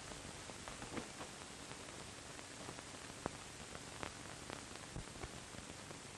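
Steady hiss of an old 1940 film soundtrack, with faint scattered clicks and crackles.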